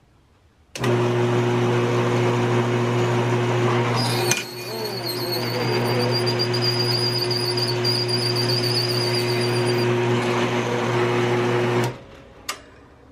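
Benchtop drill press switching on about a second in and running with a steady motor hum, then switching off near the end. From about four seconds in a 15/32-inch bit cuts into a soft brass part with a wavering high squeal that stops about ten seconds in.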